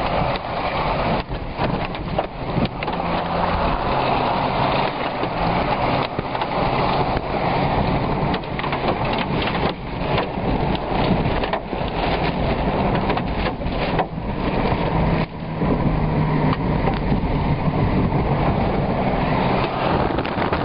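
Tornado winds roaring loudly with rain lashing, heard from inside a car, with many sharp knocks throughout and a low steady hum underneath.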